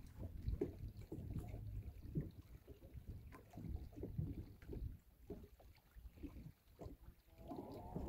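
Small waves lapping and slapping against the hull of a fishing boat, with irregular low knocks and wind buffeting the microphone.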